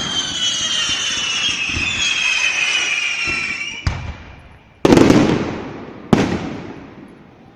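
Several whistling fireworks sounding together, their high whistles sliding slowly down in pitch and fading out about four seconds in. Then a small bang and two loud firework bursts, each trailing off.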